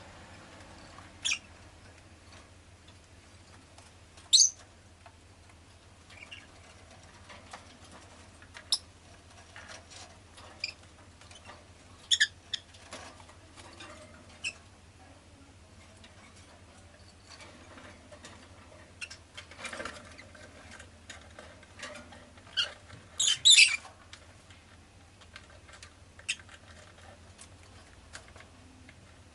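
Rosy-faced lovebird giving short, sharp, high chirps every few seconds, with a quick cluster of several calls a little past the middle, and small clicks and scratchy taps in between.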